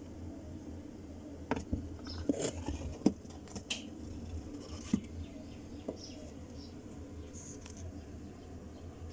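Scattered clicks and knocks from handling plastic gear-oil bottles while emptying them into a rear differential, heard over a steady low hum. Short high chirps come and go.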